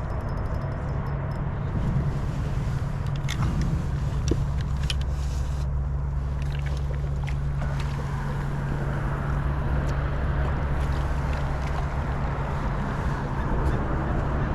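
Boat motor running steadily as a low hum under a wash of noise, with a few light clicks.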